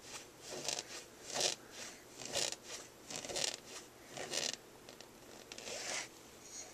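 A baby's fingernails scratching a surface in a series of short rasping strokes, about six of them, roughly one a second.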